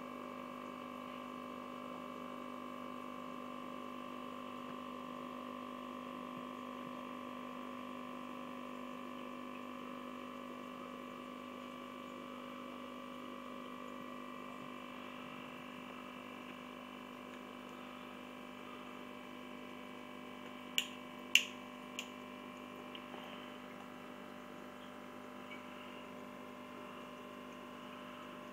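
Steady hum of running aquarium equipment, with several constant tones. Three sharp clicks in quick succession about three quarters of the way through.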